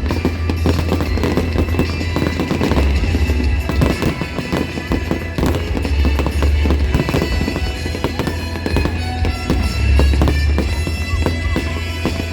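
Fireworks display: a dense run of bangs and crackling over loud music.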